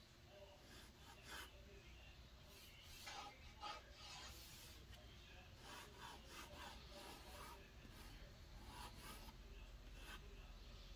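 Faint scratching of a pencil drawing on paper, in many short, irregular strokes.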